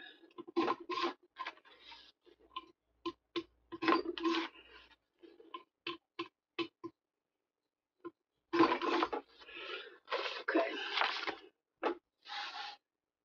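Paper and crafting supplies being handled on a table: irregular taps and clicks mixed with short bursts of rustling and scraping.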